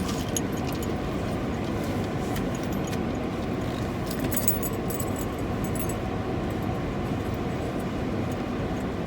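A steady low rumbling noise, with light metallic jingling about four to five seconds in.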